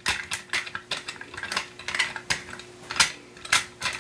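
Plastic smartphone holder being twisted onto an aluminum riser on a Platypod Max plate: irregular clicks and light clatter of the hard parts knocking together, the loudest knocks about two and three and a half seconds in.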